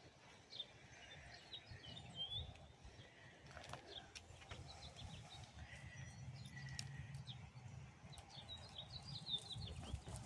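Faint outdoor ambience: small birds chirping in short calls, several close together near the end, over a low steady rumble.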